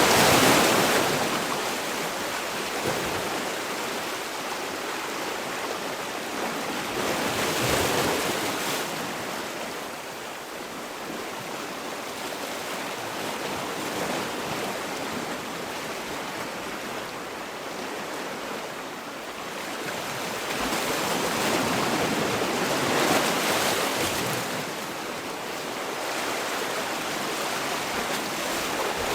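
Sea waves breaking and washing on a shore, rising and falling in swells, with the biggest surges about eight seconds in and again around twenty-three seconds in.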